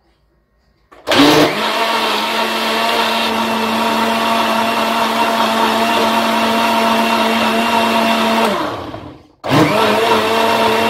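Countertop blender motor starting up about a second in and running at a steady pitch, blending a liquid fruit protein shake. Near the end it winds down and stops, then is switched straight back on.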